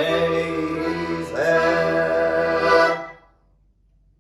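Accordion playing the closing chords of a folk song: a held chord moves to a final chord about a second and a half in, which stops about three seconds in.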